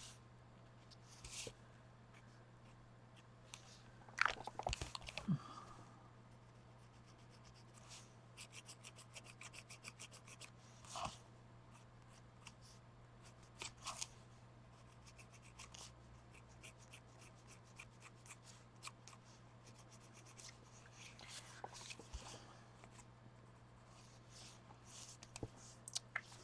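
Faint scratching, rubbing and small taps of hands working on paper art cards, over a steady low hum.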